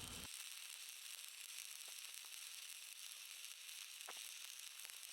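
Faint stick-welding arc from a 3/32-inch 7018 low-hydrogen rod at about 90 amps, a steady sizzle with a few sharp crackling pops.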